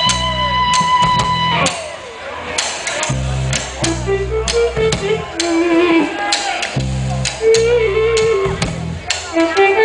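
Live blues-rock band playing: a long held electric guitar note breaks off about a second and a half in, then quick guitar lead runs over bass and drum kit.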